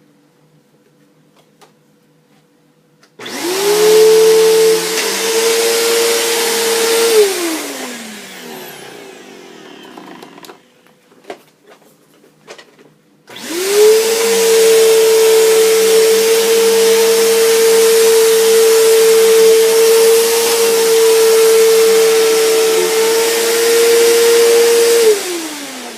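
Bissell vacuum cleaner switched on, its motor whining steadily for about four seconds, then switched off and spinning down. After a few clicks it is switched on again, runs steadily for about twelve seconds, and is switched off, the motor winding down near the end.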